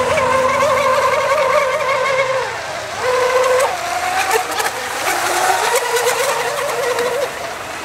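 Several radio-controlled racing boats running flat out together, their small engines making a buzzing note that wavers in pitch, dips briefly about two and a half seconds in, then picks up again as the boats round the course.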